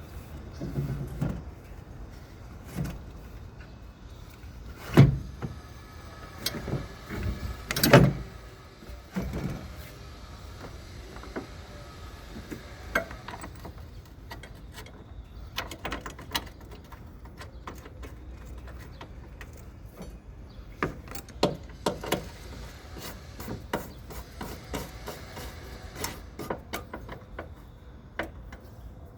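Scattered clicks and knocks of hand work on a vehicle over a steady low hum, with two louder thumps about five and eight seconds in.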